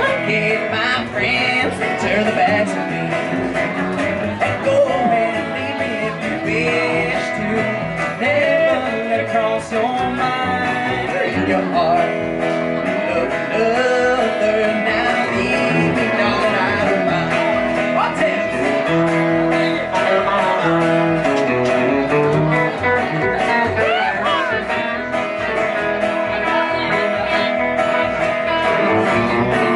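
Small country band playing live: electric guitars over a plucked upright bass, in an instrumental break with no singing.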